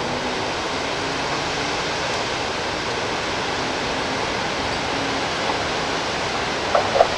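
Steady rushing hiss of heavy rain falling during a thunderstorm, with two short knocks near the end.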